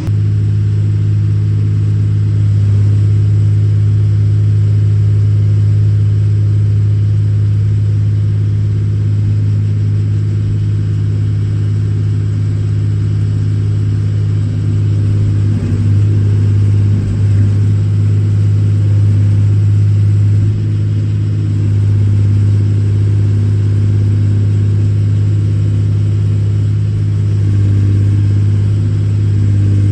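Case 125B excavator's diesel engine running steadily as the machine works, with small swells in engine load about halfway through and again near the end.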